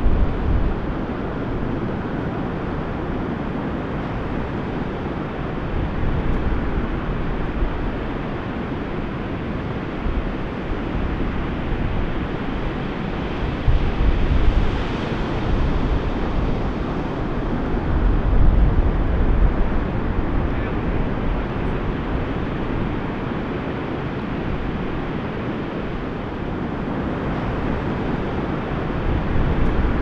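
Ocean surf breaking and washing in a steady rush, with wind buffeting the microphone; the low rumble swells in gusts about halfway through and again a few seconds later.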